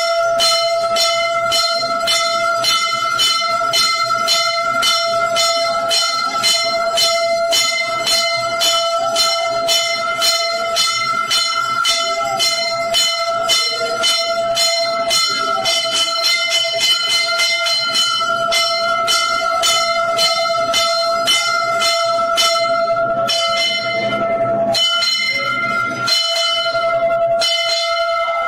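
Temple bells ringing rapidly during aarti: quick, even strikes about three or four a second over a steady ringing hum, the strikes thinning briefly a little before the end.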